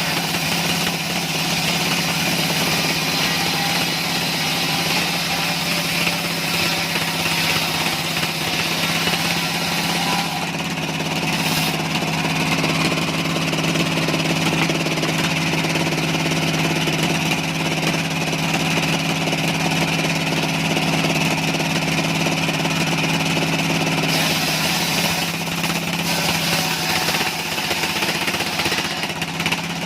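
Engine-driven sawmill machinery running steadily, a constant engine hum under a dense mechanical clatter.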